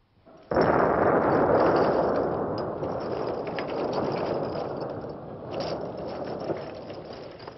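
A loud burst of rushing noise that starts suddenly about half a second in and fades slowly over several seconds, with small metallic clicks over it as rifle cartridge clips are handled in an ammunition box.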